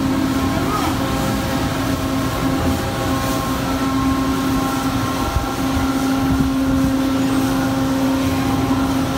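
Electric towing locomotive (canal mule) running on its track beside a ship in the lock: a steady machine hum with one held low tone and its overtones, not changing in pitch.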